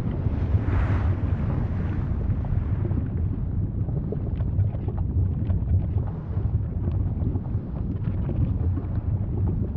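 Volcano rumbling: a steady deep roar with a brief louder hissing surge about a second in, then faint scattered crackles and pops over the rumble.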